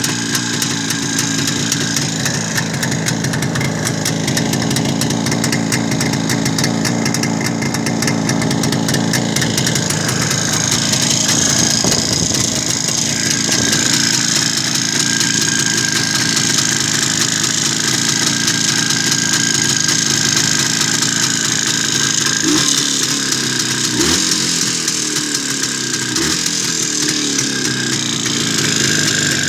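Motorcycle engine running near idle with a knock that is put down to the head gasket; the revs change a few times in the last several seconds.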